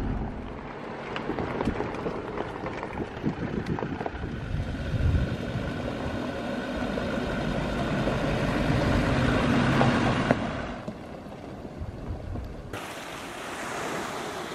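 Land Rover Defender 110 driving on a rough gravel mountain track, its engine and tyres on the stones growing louder to about ten seconds in, then dropping away. Near the end, wind and sea washing against a rocky shore.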